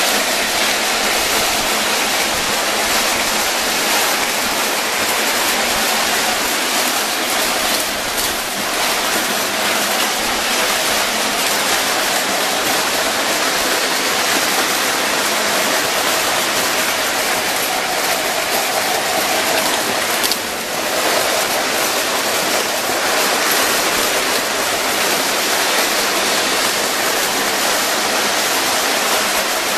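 Several Lionel and Williams O gauge trains running at once on three-rail tinplate tubular track, making a steady, even rushing noise of wheels on the tin rails, with a brief dip about twenty seconds in.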